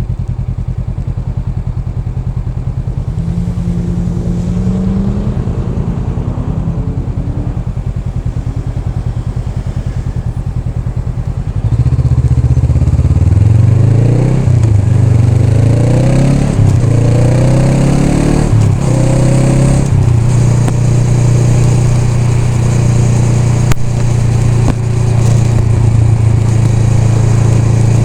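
Honda Rebel 500's parallel-twin engine running at low revs. About twelve seconds in it gets louder and climbs in pitch several times, dropping back between climbs as it accelerates through the gears. It then holds a steady pitch at cruising speed.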